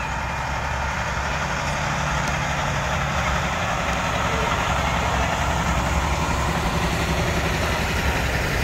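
Diesel engine of a road-rail truck running as it hauls three hopper cars along the track, a steady low rumble under the hiss and rattle of the cars rolling on the rails, growing slowly louder as they pass.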